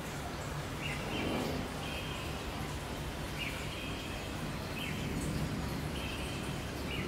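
A bird calling repeatedly, each call a quick upward sweep into a short held buzzy note, about every one and a half seconds, over a steady low background hum.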